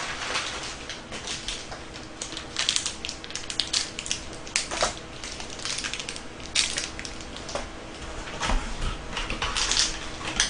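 Plastic KitKat wrappers crinkling and tearing as individually wrapped bars are opened by hand, in irregular crackling bursts.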